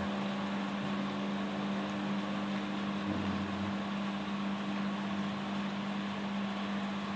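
Steady machine hum with one strong low tone and fainter overtones above it, over a constant hiss.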